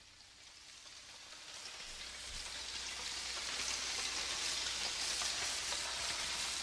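A steady rushing hiss, like falling rain, fading in from near silence and growing steadily louder over a faint low hum: the sound-effect intro of a recorded pop ballad, before the instruments come in.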